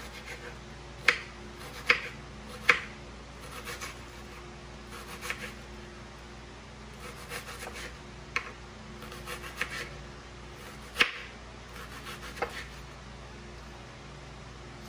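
Knife slicing red onion on a cutting board: a handful of sharp, unevenly spaced knocks of the blade meeting the board, slow and unhurried, with softer rubbing and ticking between strokes.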